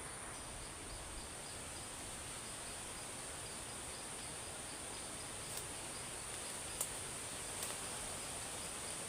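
Insects calling: a steady high-pitched drone with a cricket-like chirp repeating evenly beneath it. A few faint clicks come in the second half.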